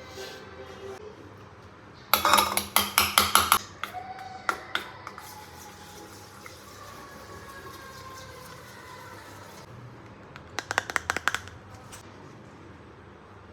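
Kitchenware clattering and clinking in two quick rattling bursts, each a second or so long. The first comes about two seconds in and the second near the end, with a couple of single clinks shortly after the first burst.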